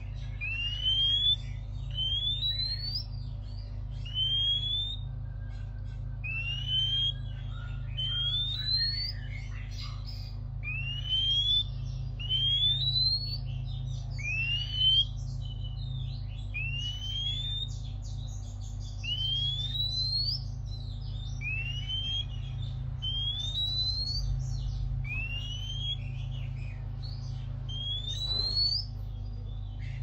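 Oriental magpie-robin giving a repeated rising whistle, one upward-sweeping note about every one and a half to two seconds, over a steady low hum.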